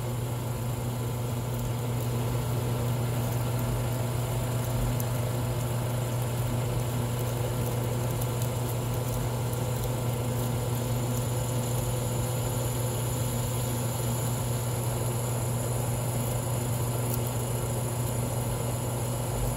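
Drill press running steadily with a steady hum while its freshly sharpened twist bit cuts through a stack of aluminum plates, throwing off a continuous stream of long spiral shavings.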